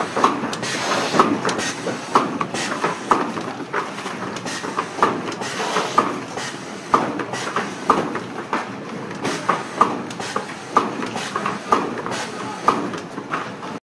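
Automatic tube cartoning machine running: a steady mechanical clatter with sharp clicks and clacks about twice a second, slightly uneven.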